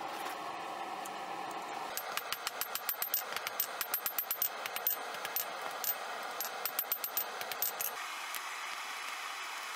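A hand hammer striking a red-hot steel bar on an anvil in a fast run of blows, several a second, each with a short bright metallic ring. The blows start about two seconds in and stop about a second before the end, over a steady background hiss.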